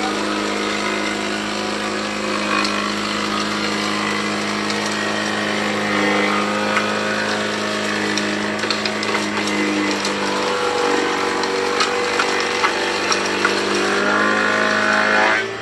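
Woodworking shop noise: a steady machine hum with scattered knocks and clicks of wood and tools being handled.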